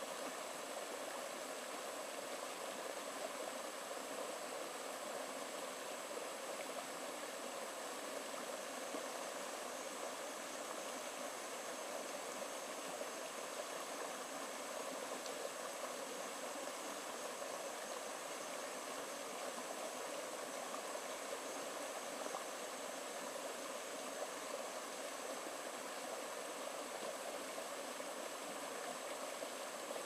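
Shallow rocky forest stream running steadily, water splashing over stones in a small cascade.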